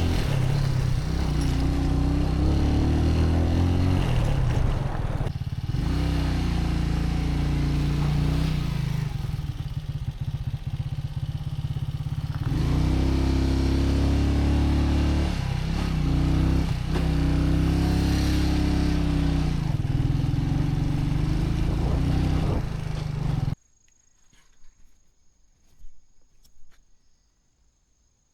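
A vehicle engine running under way, its pitch rising and falling again and again with the throttle. About 23 seconds in it cuts off suddenly, leaving near silence with a few faint clicks.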